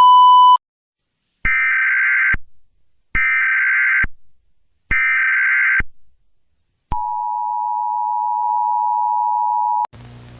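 Emergency Alert System tones: a short buzzy beep, then three roughly one-second bursts of SAME header data, then the two-tone EAS attention signal held steady for about three seconds before it cuts off suddenly.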